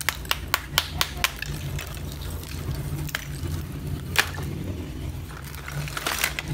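A small hammer taps and cracks slabs of roasted multani mitti (fuller's earth clay): about five sharp clicks come quickly in the first second or so. Then the brittle pieces clink and scrape as they are handled, with one sharp crack about four seconds in and crackling near the end as a piece is snapped. A steady low hum runs underneath.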